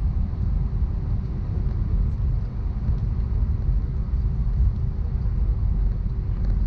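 Cabin noise of an Airbus A319 with IAE V2500 engines running at low power on the ground before takeoff: a steady low rumble with a faint constant hum.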